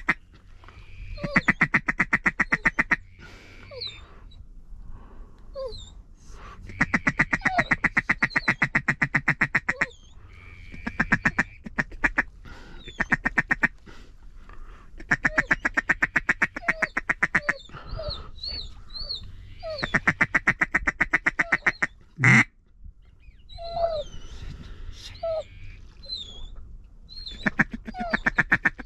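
Duck calls blown to work birds passing overhead: about six runs of rapid, evenly spaced quacking notes, each two to three seconds long, with short whistled notes in between and one loud single note about 22 seconds in.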